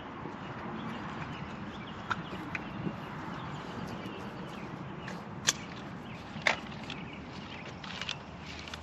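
Steady outdoor background noise broken by a few sharp cracks: two faint ones about two seconds in, then two louder ones past the middle, about a second apart.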